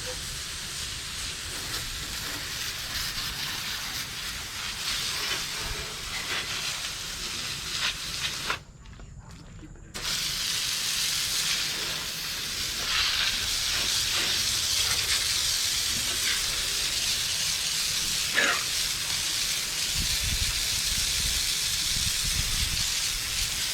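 Steady hissing noise, broken once by a short quiet gap about nine seconds in.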